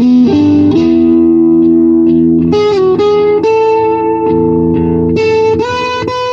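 Electric guitar played through an old Ace Tone Fuzz Master pedal into a Marshall amp: long, sustaining fuzzed notes that change pitch every second or so. The fuzz is there to thicken the amp's own thin-sounding distortion.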